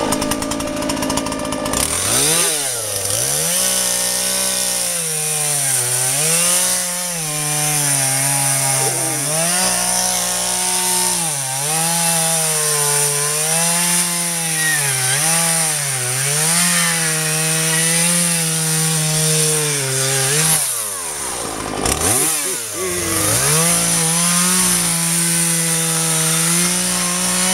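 Husqvarna 236 X-Torq two-stroke chainsaw running hard as it cuts wood. Its engine pitch dips and recovers again and again as the chain loads up in the cut. About 21 seconds in it drops away briefly, then comes back up to speed.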